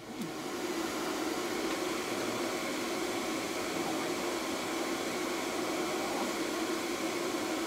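Pet grooming dryer blowing steadily, an even rushing noise with a low hum under it.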